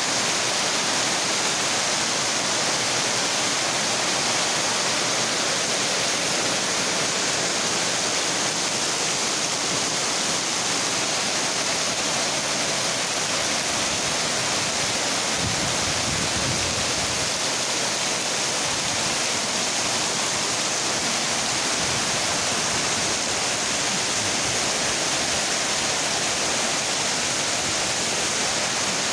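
Heavy downpour, a steady even hiss of rain falling on the yard and roofs. A brief low rumble comes about halfway through.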